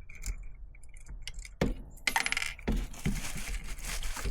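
Small steel washers and nuts clinking and rattling against each other and against metal as they are fitted by hand onto a bolt, with a few sharp knocks.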